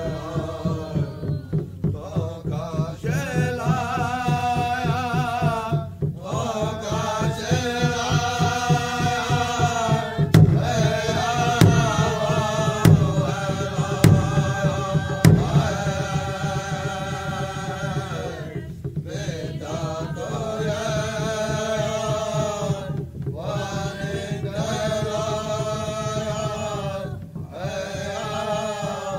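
Background music: a sung, chant-like vocal in long held phrases of a few seconds each over a fast steady beat, with a few sharp percussive hits midway.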